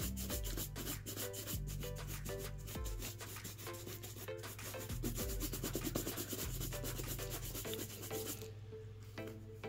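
Horsehair shoe brush buffing polish into a black leather dance shoe with quick, repeated back-and-forth strokes.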